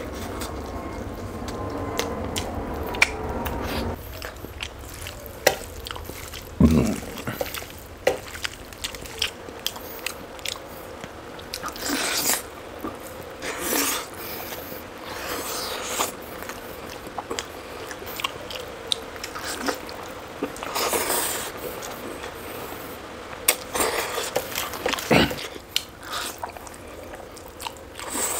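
A person chewing and biting food close to the microphone, with scattered short clicks and brief noisy bursts of mouth sounds. A low steady hum under the first few seconds cuts off about four seconds in.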